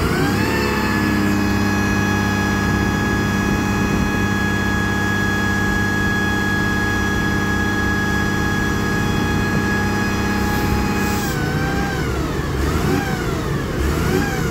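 Diesel engine of a VDL SB200 single-decker bus revved up and held at high revs, then dropping about eleven seconds in and blipped rapidly up and down, to build up air pressure in the broken-down bus's air system.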